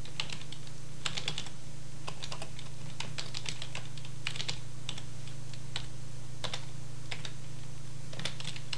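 Typing on a computer keyboard: irregular keystroke clicks in short runs, over a steady low hum.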